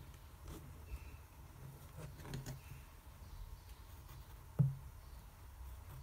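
Faint ticks and taps of a pencil marking points on paper along a ruler, with one louder knock about three-quarters of the way through.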